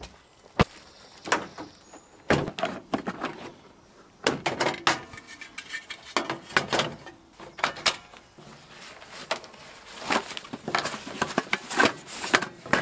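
Camp cooking gear being handled: a string of irregular clicks, knocks and rustles as a portable gas stove's pot support is fitted and a stovetop oven is pulled from its fabric drawstring bag.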